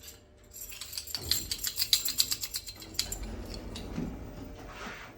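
A bunch of keys jangling and clinking in the hand, a quick run of sharp metallic clicks for about two seconds, then softer handling rustle.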